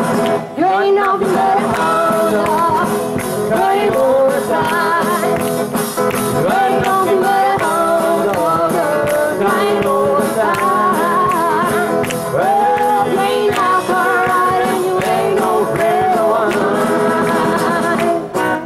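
Live band music: a singer's voice over a strummed acoustic guitar keeping a steady rock-and-roll beat.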